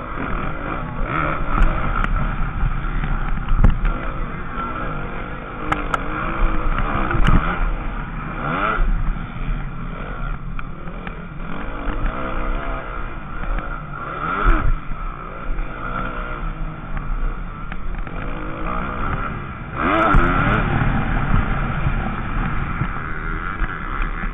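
Motocross bike engine revving up and falling back again and again as it is ridden hard around a dirt track, heard close up and muffled from a camera on the bike, with several sharp knocks from the bumps and landings.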